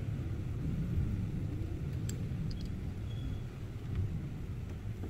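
Low steady rumble of background noise, with a couple of light clicks about two seconds in as a small hex key works the Z-axis screws of a resin 3D printer.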